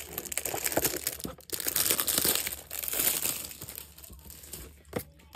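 Clear plastic wrapping crinkling and tearing as two cardboard boxes are pulled out of it. The crackling fades after about three and a half seconds, and there is a single knock near the end.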